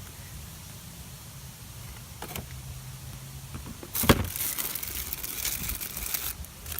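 Kit parts and plastic packaging being handled: a sharp knock about four seconds in, then busy rustling and crinkling, over a steady low hum.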